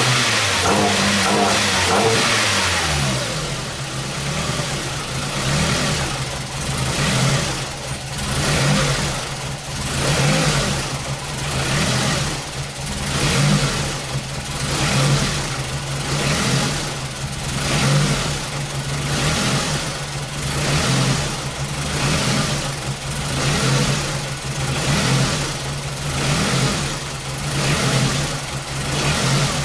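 Ford Focus Zetec four-cylinder engine running rough at idle with its camshaft sensor unplugged. The revs fall back in the first few seconds, then the engine note swells and dips about once a second, the sound of a misfiring engine that is bogging down.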